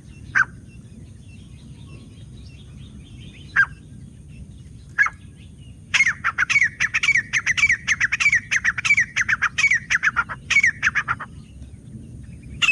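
Grey francolin (teetar) calling: three sharp single notes a few seconds apart, then from about six seconds in a fast run of repeated falling notes, several a second, lasting about five seconds.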